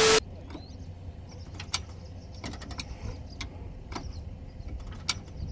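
Scattered sharp clicks and knocks of a hand-worked metal mechanism over a steady low rumble, after a short loud burst at the very start.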